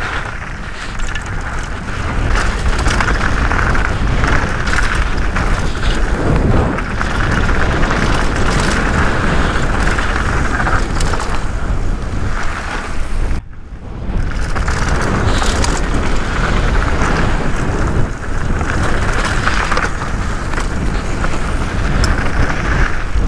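Downhill mountain bike descending fast on a dry gravel trail: wind rushing over the action camera's microphone and a steady low rumble of tyres on dirt, with small knocks over bumps. There is a short break about halfway through.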